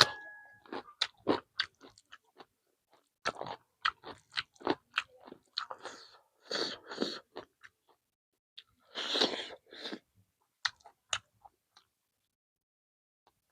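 A person chewing chicken and vegetables close to the microphone, with many wet mouth clicks and two louder crunching bites in the middle.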